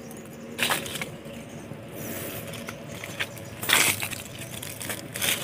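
Dry leaves and plants rustling and crackling a few times, in short brushes, as the ground cover is searched through.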